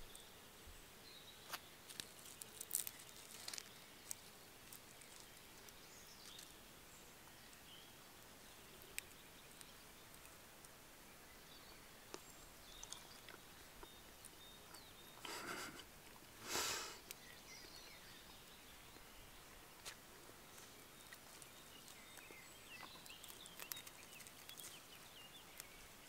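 Near silence in the open air, broken by scattered faint clicks and two short rustles about fifteen and sixteen and a half seconds in: quiet handling sounds as roasted fish is picked off a wooden stick by hand.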